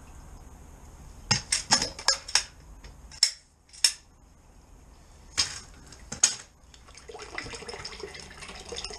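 Drain rods clacking and knocking against each other and the manhole frame as they are worked and pulled out of a blocked drain chamber: a quick run of sharp knocks, then a few single knocks. About seven seconds in, a steady sound of water running through the channel takes over.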